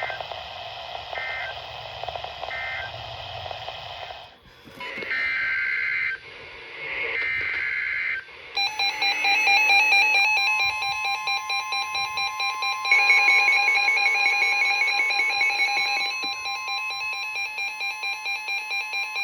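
NOAA Weather Radio over light static: three short warbling SAME data bursts end the previous alert, then two longer, louder data bursts of the next alert's header follow about five seconds in. From about eight and a half seconds a loud pulsing electronic alert tone sounds, and from about ten seconds a steady weather-radio warning alarm tone near 1 kHz runs with it, announcing the next warning.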